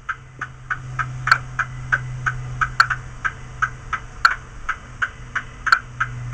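Sound-decoder recording of a Class 60 diesel locomotive idling, played through a model's bass reflex speaker: a steady low engine hum with a sharp tick about three times a second.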